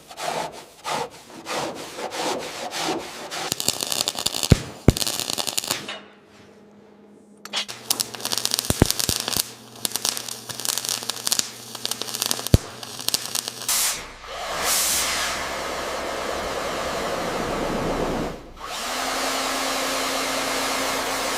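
A series of workshop tool sounds in short cuts. First come rhythmic hand rubbing strokes, about four a second, then scattered knocks and a brief near-quiet gap. After that, power tools run steadily, the last with a steady hum.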